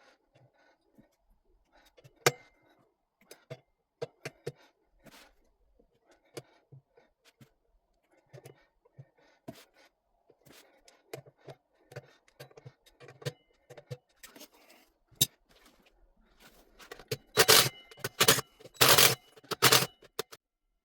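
Metal parts and tools being handled at a motorcycle's rear wheel: scattered light clinks and knocks, then a louder scraping clatter about three seconds before the end.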